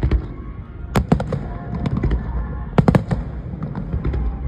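Aerial fireworks bursting: sharp bangs and crackles over a low rumble, a few about a second in and a quick cluster near three seconds.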